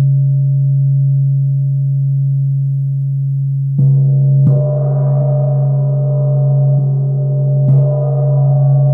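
Large forged Tibetan gong ringing with a deep steady hum. It is struck with a soft round mallet about four seconds in, again half a second later, and once more near the end, each stroke bringing up brighter shimmering overtones over the drone.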